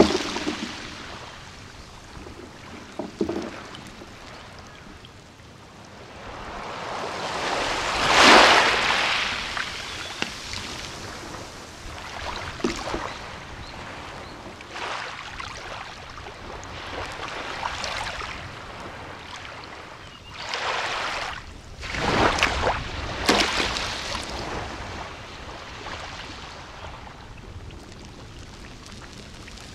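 Small sea waves breaking and washing up on a beach, each one swelling and falling away over a steady wash of surf; one louder wave about eight seconds in and three close together a little after twenty seconds.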